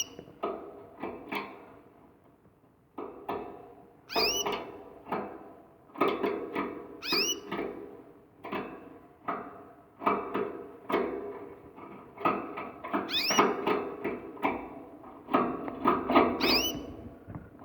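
Canary singing in repeated bursts of chirps and trills, with a high swooping whistle now and then.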